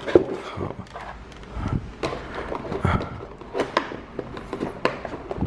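Cardboard keyboard packaging being handled, with irregular scrapes, rustles and light knocks.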